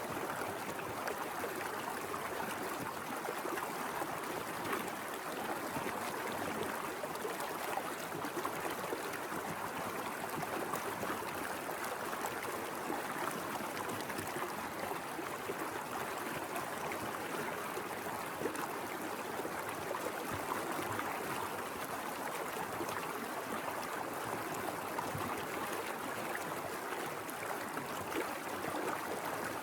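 Mountain river flowing over rocks: a steady rush of water with small gurgles and splashes throughout.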